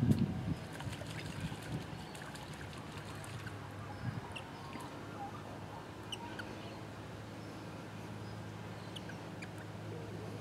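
Crimson rosellas splashing in a shallow stone birdbath, the loudest splash right at the start and smaller splashes a few times after, with scattered short high chirps over a steady low hum.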